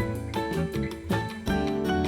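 Background music with plucked guitar-like notes and a steady beat.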